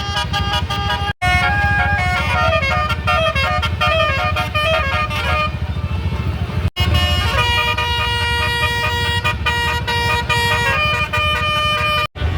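Tour bus telolet horn: a set of air horns playing a quick tune of short notes that change pitch several times a second, then long held multi-note chords. A steady low rumble runs underneath, and the sound drops out briefly twice.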